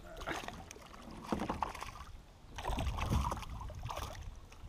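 A paddle stroking through water beside a small paddled boat, with sloshing in three uneven bouts, the loudest past the middle.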